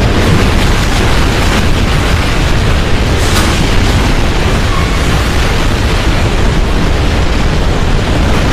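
Harsh noise music: a loud, steady wall of distorted noise with a heavy low rumble. It comes from an experimental piece built on cicada recordings overlaid with industrial noise. A brief brighter hiss rises about three seconds in.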